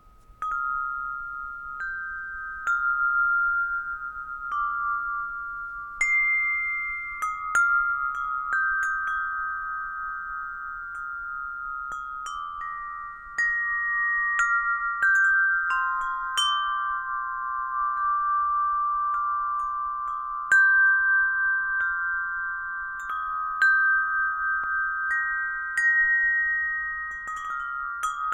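Tuned metal wind chime, a Gregorian alto chime, ringing: clear, sustained bell-like notes struck one after another every second or two, overlapping as they fade. The chiming starts about half a second in.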